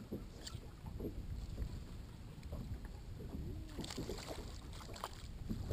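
Water lapping against a bass boat's hull, with light wind on the microphone and a few faint clicks about two-thirds of the way through.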